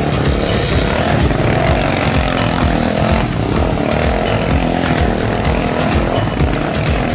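ATV engine running steadily and loud, without letting up.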